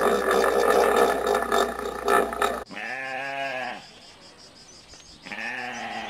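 A loud, dense sound that cuts off abruptly, followed by a sheep bleating twice, each bleat about a second long.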